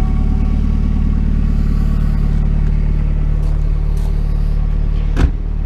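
Mazda Miata's four-cylinder engine idling steadily through a makeshift clamped-on twin-pipe exhaust, running rough, which the owner puts down to the car having sat mostly unused. A single sharp knock about five seconds in.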